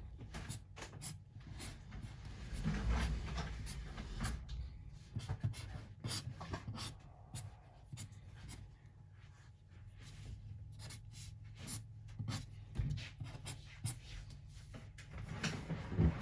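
A drawing tool scratching on paper in many quick, uneven strokes as graffiti letters are outlined and shaded, over a faint low hum.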